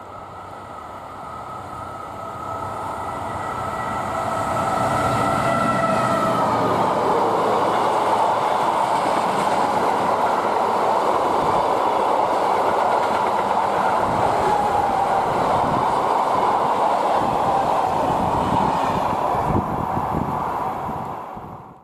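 SNCF BB 60000-class diesel locomotive approaching, its engine tone dropping in pitch as it passes about six seconds in. The train's wagons then roll by with steady wheel clatter until the sound cuts off suddenly at the end.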